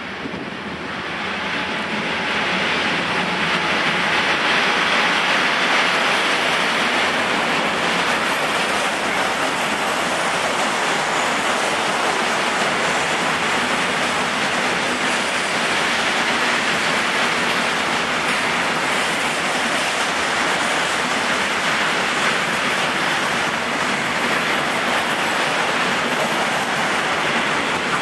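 Long intermodal freight train rolling past behind a Class 185 electric locomotive: a steady rushing noise of wagon wheels on the rails, building over the first few seconds and then holding steady as the container wagons go by.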